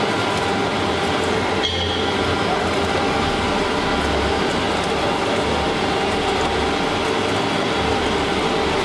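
Olive-oil mill machinery running with a steady, dense mechanical noise as the malaxer's metal paddles turn through crushed olive paste, with a brief knock about two seconds in.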